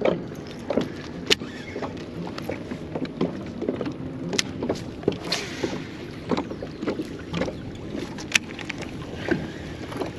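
Water slapping and knocking against the hull of a small fishing boat rocking on wind-driven chop, in irregular knocks over a steady low rumble of wind and water.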